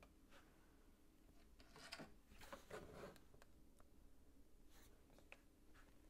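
Near silence with a few faint clicks and rustles of LEGO plastic pieces being handled and pressed onto the model, a small cluster of them about two to three seconds in and a couple more near the end.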